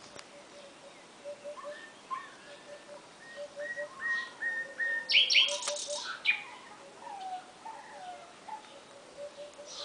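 Nightingale singing: varied phrases of repeated whistled notes, with its loudest, harsh burst about five seconds in and falling notes after. A low note repeated in short groups of about three runs in the background.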